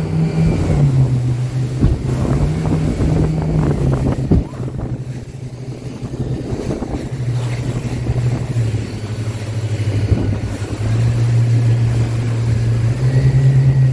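Motorboat running at speed over the sea: a steady engine drone whose pitch steps up and down, over rushing water and spray from the hull cutting through the waves. It goes quieter for a couple of seconds around the middle.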